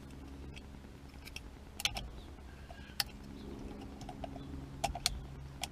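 A few light, sharp clicks and taps of small plastic parts being handled: a horn button and its wire connectors being fitted to a steering wheel.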